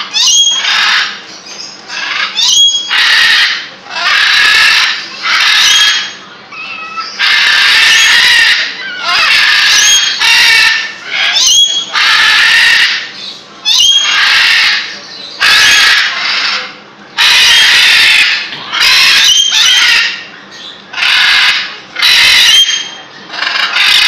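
Sun conure screeching: loud, harsh calls repeated about once a second, some starting with a sharp upward glide.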